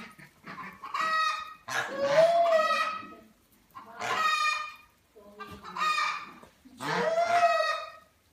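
Chickens in a farm yard calling, with a rooster crowing: about five loud calls, each around a second long, a couple of them longer with a pitch that rises and falls.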